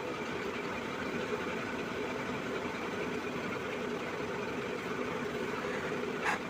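Steady background machine hum with a few faint steady tones, and no voice. A short faint sound comes near the end.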